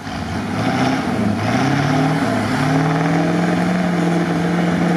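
An off-road 4x4's engine revving up hard under load. Its pitch climbs over the first couple of seconds with a brief dip, then holds high and steady.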